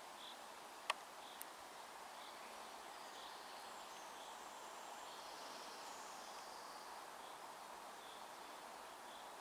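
Faint rural outdoor ambience: a steady hiss of air and foliage, with small high chirps repeating every half second to a second and a single sharp click about a second in. The distant approaching diesel locomotive is not clearly heard.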